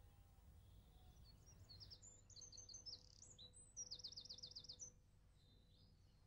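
Faint birdsong: small birds chirping, with a quick run of about eight rapid, repeated high descending notes a little past the middle.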